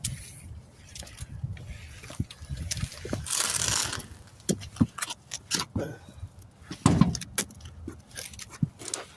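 Hands-on work with a truck wheel and tire: scattered metallic clinks and knocks, the loudest about seven seconds in, with a brief rushing scrape about three seconds in.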